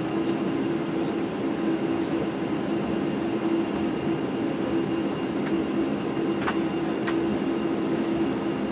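Passenger-cabin noise of a Boeing 747-8i taxiing: a steady hum from its GEnx turbofan engines over a constant rush of air. Three faint clicks come a little past the middle.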